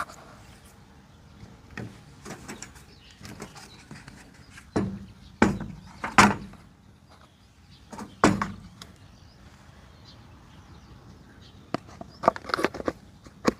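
Small parts and tools being handled while a scooter carburetor is taken apart: scattered light clicks, four sharper knocks around the middle, and a quick run of clicks near the end.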